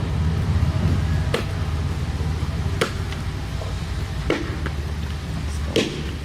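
Hewing axe chopping into a log, four solid strokes about a second and a half apart, cutting a V-shaped notch along the log ahead of squaring it with a broad axe. A steady low rumble runs underneath.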